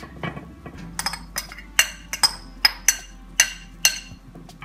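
Metal spoon clinking against ceramic bowls, about a dozen short ringing taps at an uneven pace, as chopped herbs are scraped from one bowl into another.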